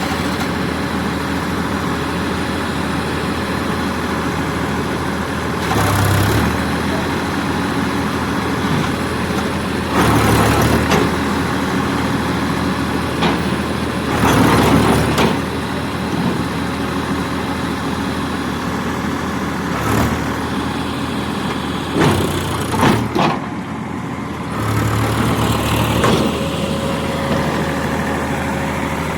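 Heavy diesel engine of a working machine running steadily, revving up briefly half a dozen times.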